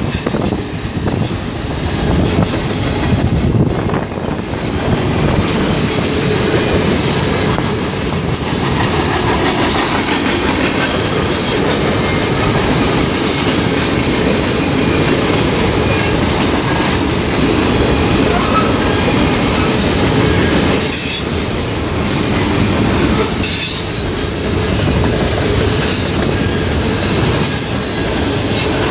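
Freight train's cars rolling past close by: a steady, loud rumble and clatter of steel wheels on the rails, with brief high wheel squeals now and then.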